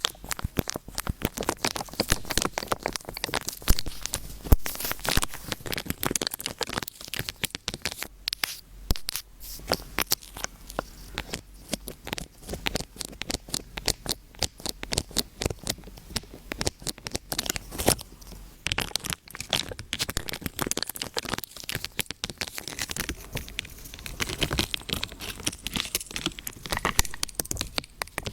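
Dense, irregular crackling and crinkling: sharp clicks many times a second with short louder snaps, like something dry being crumpled or crackling.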